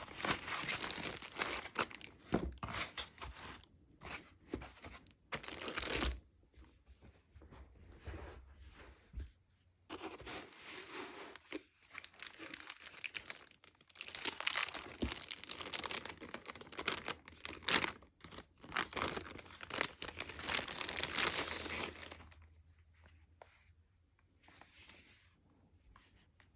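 Packaging being crinkled and torn by hand in irregular rustling bursts, busiest in the first few seconds and again through the middle, then dying down near the end.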